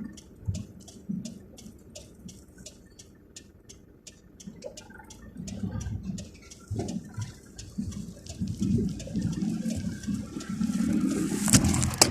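Storm water splashing and rushing against a vehicle, with fast ticking at about four a second early on that fades. The rush builds and becomes loud near the end.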